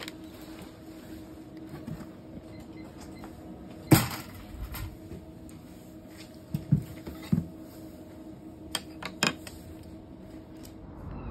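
Goods being handled and set down on a wooden shop counter: one loud knock about four seconds in, then a few lighter knocks and sharp clicks, over a steady low hum.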